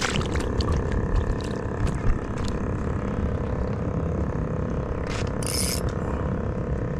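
Fishing reel being wound, a steady mechanical whirring of its gears with a few clicks near the start. A short hiss comes about five and a half seconds in.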